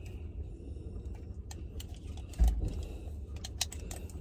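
Cartridges being pressed one at a time into a handgun magazine: a run of small, sharp, unevenly spaced clicks, with one dull thump about two and a half seconds in, over a steady low rumble.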